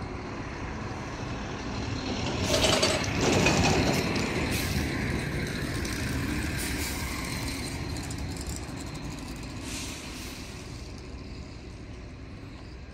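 Heavy truck engine idling with a steady low rumble, and a loud burst of air-brake hiss about two and a half seconds in that fades over the next few seconds, with a few shorter hisses later.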